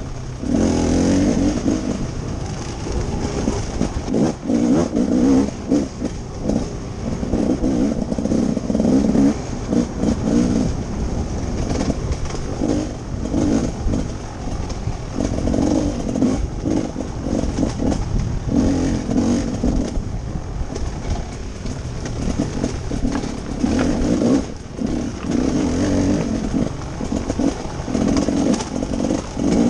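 Off-road dirt bike engine revving up and falling off again and again as the throttle is worked, heard from the rider's helmet, with frequent knocks and rattles from the bike over rough ground.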